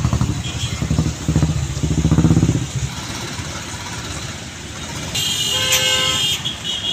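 Road traffic in a jam. An engine runs close by with a fast, even chug for the first few seconds, then a vehicle horn honks for about a second near the end, with shorter toots around it.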